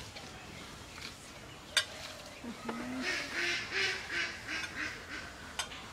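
Ducks quacking in a quick run of calls, about four a second, from about three seconds in. Just before that comes a single sharp clink of a metal spoon against a china dish.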